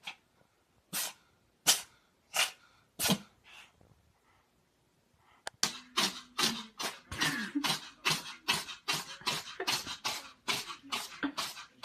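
A cat sneezing five times in quick succession, roughly once every three quarters of a second. After a short pause, about five and a half seconds in, a faster run of short sharp sneezes starts, about three a second, with some squeaky voiced sounds mixed in.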